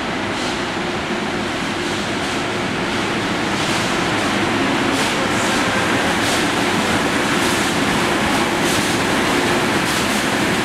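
Loud, steady rumble of transit traffic in an underground station tunnel, with sharp clacks coming irregularly about once a second.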